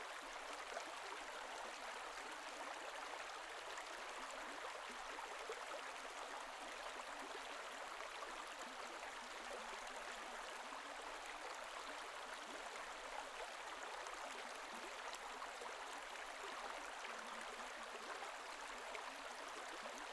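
Faint, steady rush of flowing water.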